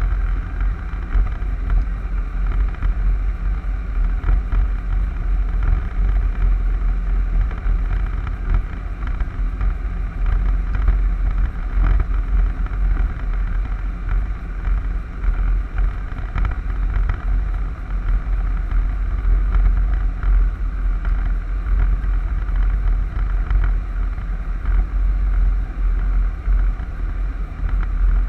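Wind buffeting the microphone: a continuous low rumble that swells and dips with the gusts.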